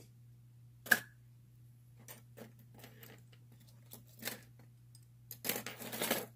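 Lock picks and tension wrench clicking and scraping in the core of a Best padlock, with one sharp click about a second in. A dense burst of metallic rattling follows near the end. A low electrical hum runs underneath.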